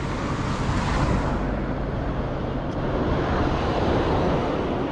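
Steady rushing noise of wind on the microphone mixed with road and traffic noise, heard while riding a bicycle. A brighter hiss swells about a second in and fades.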